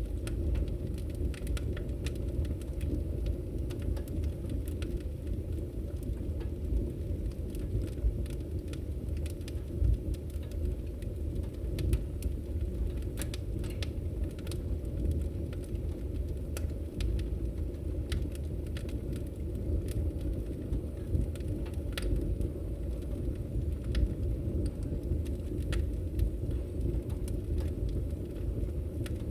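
Fire crackling in a fireplace: a steady low rumble of burning with frequent sharp pops and snaps, a few louder cracks standing out here and there.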